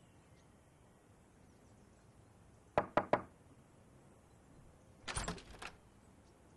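Three quick knocks on a wooden door, then about two seconds later a cluster of clicks and a low thump as the door's handle is worked and the door is pushed open.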